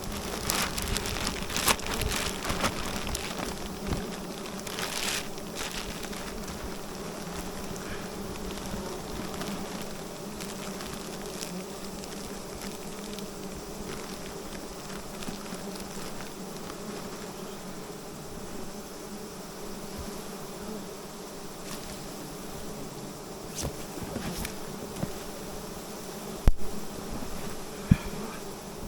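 A swarm of wild honey bees buzzing steadily, with a few sharp knocks, the two loudest near the end.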